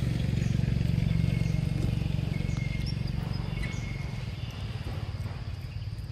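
Low, steady hum of a vehicle engine, slowly fading away.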